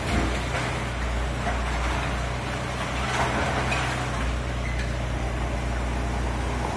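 Tracked excavator's diesel engine running steadily while it digs into demolition rubble, with scattered knocks and scraping of broken masonry.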